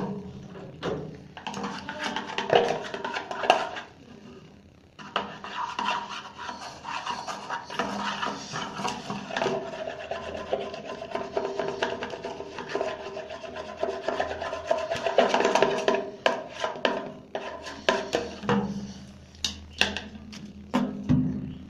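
Wooden stick stirring and scraping shampoo around a small plate, in quick uneven strokes with a short pause about four seconds in.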